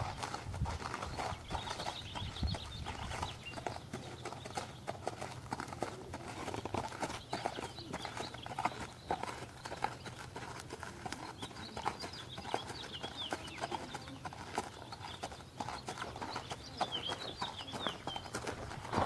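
Horse's hooves clip-clopping at a walk, a steady run of uneven knocks, with a few faint high chirps about two-thirds of the way through and again near the end.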